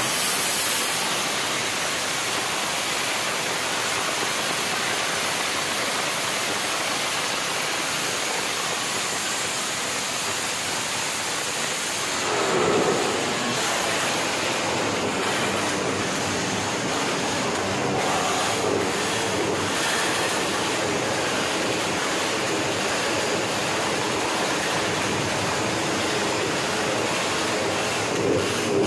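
Modified underbone motorcycle held at high revs through its open aftermarket racing exhaust, a dense, steady noise loud enough to swamp the microphone, with brief louder surges about 12 seconds in and near the end.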